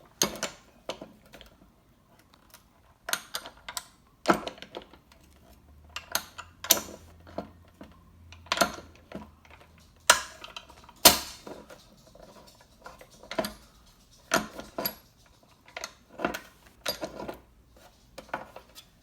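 Hole-straightening pliers clicking and knocking against the sheet metal of a car hood as a bent hole is worked straight: irregular sharp metallic clicks, sometimes in quick pairs.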